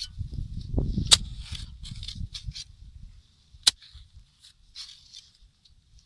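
A hoe chopping into hard, dry clay soil: dull thuds of the blade digging, with two sharp knocks about a second in and again after three and a half seconds.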